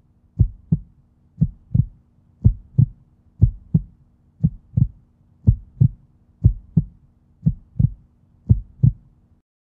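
Heartbeat sound: paired low thumps, lub-dub, about one beat a second, over a faint steady hum.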